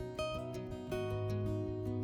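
Background music: acoustic guitar plucked and strummed, with sustained notes.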